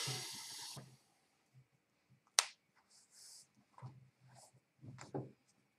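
Small handling noises at a desk: a brief rustle, then one sharp click about two and a half seconds in, with lighter taps near the end.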